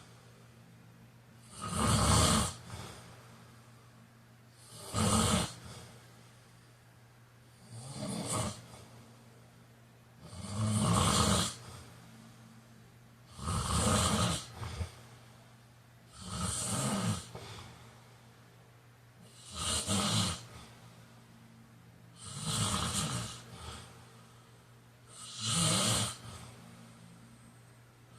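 A man snoring in his sleep, one snore on each breath about every three seconds, nine in all.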